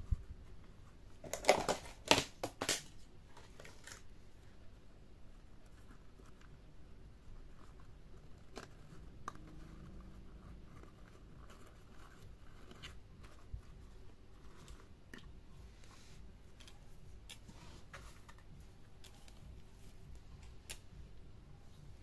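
Hands handling and arranging soft baby items and packaging: a short burst of loud rustles and clicks about two seconds in, then scattered faint clicks and rustles.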